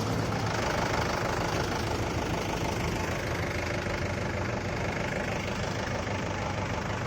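An engine idling steadily, with an even tone throughout.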